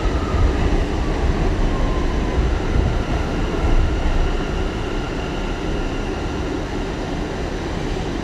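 R179 subway train running along the track: a steady rumble of wheels and car body, with a faint steady high whine over it.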